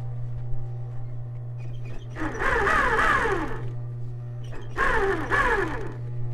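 Industrial sewing machine stitching in two short runs of about a second and a half each, over the steady hum of its running motor.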